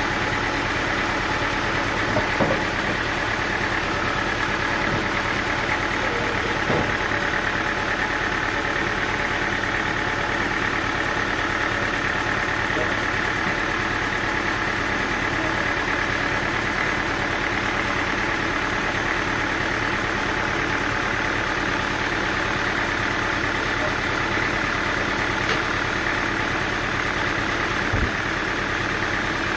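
An engine running steadily at an even speed, with a few light knocks.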